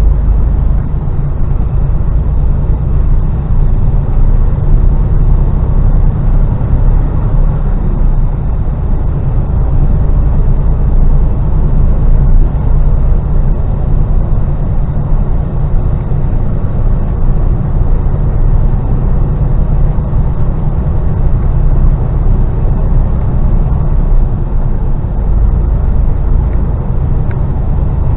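Mercedes Actros lorry heard from inside its cab while driving along: a steady low drone of engine and road noise.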